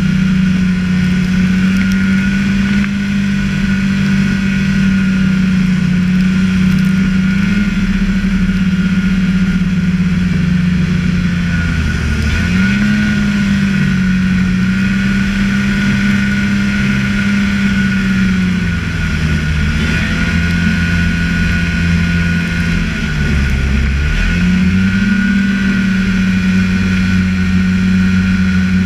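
Snowmobile engine running hard through deep powder snow, holding steady high revs. The revs drop briefly and climb back three times, about 12, 19 and 23 seconds in.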